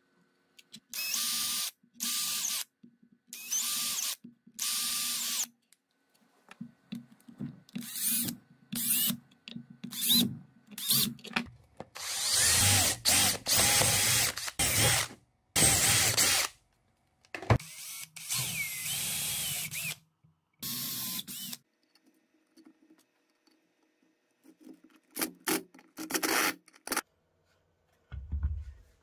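Cordless drill drilling into a wooden block, run in repeated spurts: four short even bursts at first, then a longer run of several seconds near the middle, then more short bursts.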